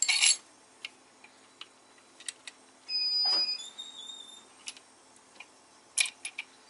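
Light metal clicks and clinks from a connecting-rod cap being worked loose on the crankshaft of a VW VR6 short block. There is a sharp clatter at the start, a louder rub with a brief squeak about halfway, and a few quick ticks near the end.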